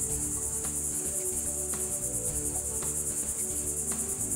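A high, steady insect chorus with a rapid pulsing trill, over soft low background music.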